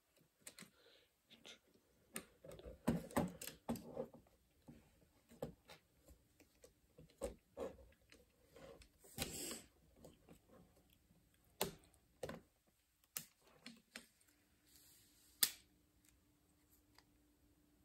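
Scattered clicks and taps of plastic Lego pieces being handled and pressed together, with a short rustle about halfway through.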